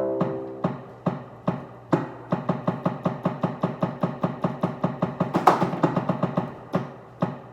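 Music with a regular beat of sharp percussive hits, about two a second at first and quickening to four or five a second about two seconds in, with a held note at the start.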